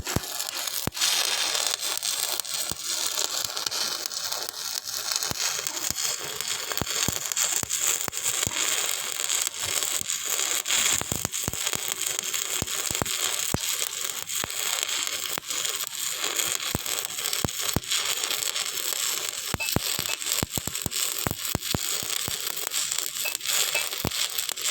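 Electric arc welding a joint: a steady crackling hiss with frequent sharp pops.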